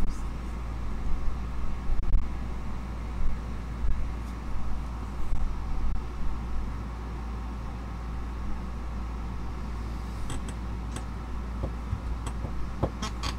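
Steady low rumble of background noise, with a few soft knocks in the first half and a few faint clicks near the end.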